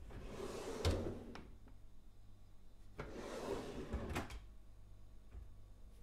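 A kitchen drawer slides on its runners and knocks to a stop, twice. The loudest knock comes about a second in, and a second slide follows a couple of seconds later, ending in a pair of knocks.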